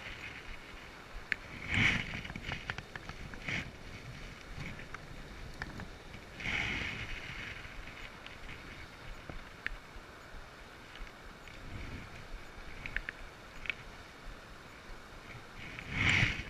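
River water running steadily, with a few louder swishes and scattered small clicks.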